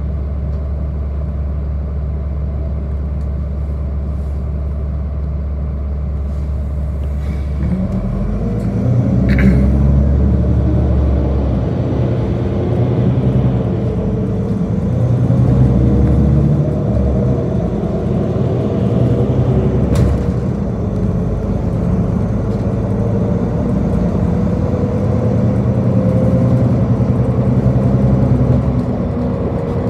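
City bus engine idling with a steady low hum, then about eight seconds in pulling away and accelerating, its pitch rising and falling through the gears. A brief hiss soon after it moves off and a sharp click about twenty seconds in.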